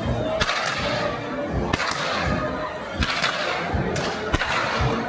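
Karbatsche carnival whips cracking sharply, about six or seven cracks at irregular spacing, roughly one a second, over a marching band playing.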